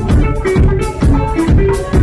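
Live band playing: a drum kit keeping a steady beat under electric bass and electric guitar.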